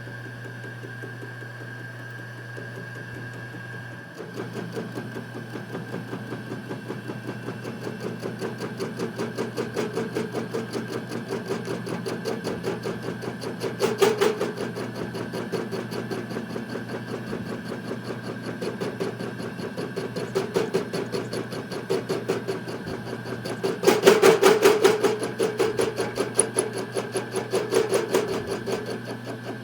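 Metal lathe running, its cutting tool resurfacing a built-up weld on a worn lawnmower part with a fast, even rhythmic ticking. The cutting starts about four seconds in, over a steady motor hum, and grows louder briefly twice.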